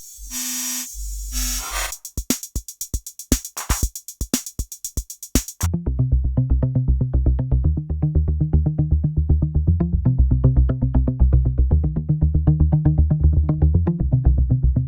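Electronic drum-machine and synth loop played through Ableton Live 11's Spectral Time granular delay effect. A bright loop gives way after about two seconds to a string of sharp, clicky drum hits at uneven spacing. About six seconds in, a dark, muffled, bass-heavy pulsing loop with its highs cut takes over.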